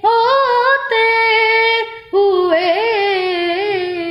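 A boy singing a naat unaccompanied in a high voice, drawing out the words into long held notes with wavering ornaments. There are two phrases, with a brief breath about halfway.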